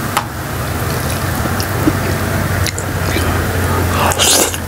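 Close-up mukbang eating sounds: jajangmyeon noodles in black bean sauce chewed wetly, then slurped noisily into the mouth near the end. A steady low hum runs underneath.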